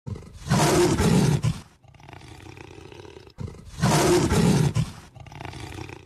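Big cat roar sound effect, played twice: a loud roar of about a second, then a quieter lower rumble, and the same again about three seconds later.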